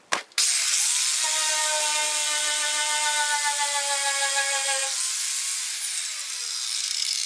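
Angle grinder with a wire wheel switched on with a click, spinning up and scrubbing undercoating and paint off the VW Beetle's sheet-steel wheelhouse with a loud, steady hiss and whine. Near the end the whine falls away in a downward glide as the wheel slows, while the scrubbing hiss continues.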